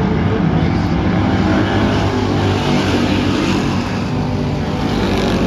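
Several dirt-track race car engines running together as the cars circle the oval, their engine notes overlapping.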